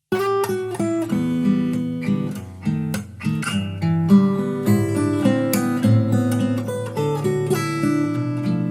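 Fingerpicked acoustic guitar music played back through a flanger effect, the 'Aggressive Flange' preset, starting abruptly just after a short silence.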